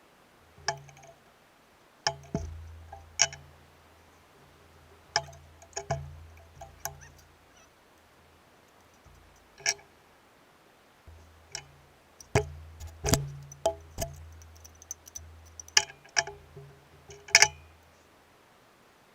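Metal parts and tools clinking and knocking as they are handled and set down: about a dozen sharp clinks with a brief ring, some in quick pairs, with dull low knocks under several of them.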